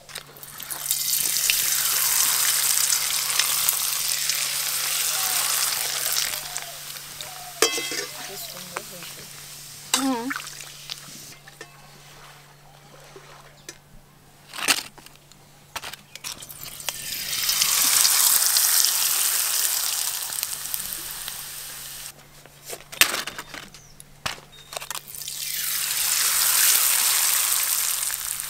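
Potato papads deep-frying in hot oil in a wok, sizzling loudly three times for a few seconds each, swelling and then dying back, with quieter bubbling between. A few sharp knocks fall in the quieter stretches.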